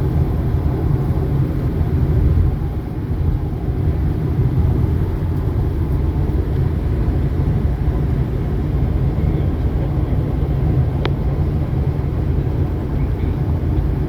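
Steady low rumble of road and engine noise inside a moving vehicle, with a faint brief click about eleven seconds in.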